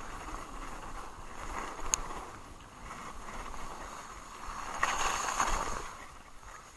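Haibike Sduro e-mountain bike's tyres rolling fast over a gravel trail on a descent, with wind on the microphone. A single sharp click comes about two seconds in, and the noise gets louder and rougher for about a second near five seconds in.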